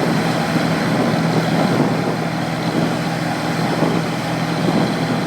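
Heavy diesel engine of farm machinery running steadily at a constant speed, with a deep even drone and no change in pitch.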